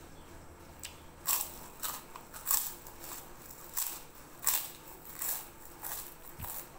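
Crunching of a crispy fried kerupuk cracker being bitten and chewed: about nine sharp, crackly crunches, starting about a second in.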